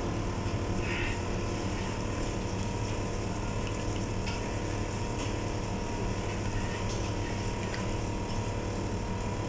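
Steady mechanical hum of kitchen air-handling equipment, with several constant tones and no change in level.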